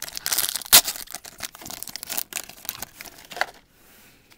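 A foil trading-card pack is torn open and crinkled in the hands: dense crackling with a sharp crack about three-quarters of a second in. It goes much quieter for the last second or so.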